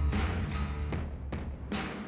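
Background music with a steady drum beat and deep bass notes.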